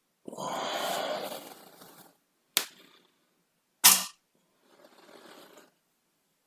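Human farts: a soft, breathy rush of air lasting about a second and a half, then two short, sharp pops a little over a second apart, and a faint puff of air near the end.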